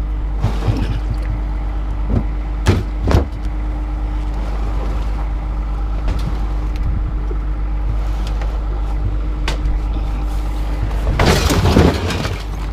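A vehicle engine running steadily, with scattered clanks and thuds of scrap metal being pulled off a truck and dropped, and a longer clatter near the end.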